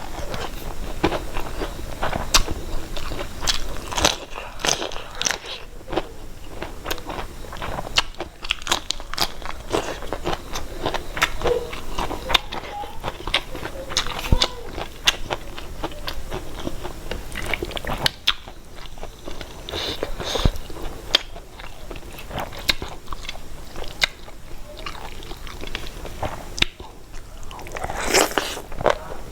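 A person eating close to the microphone, chewing with many small, sharp clicks of mouth and food throughout.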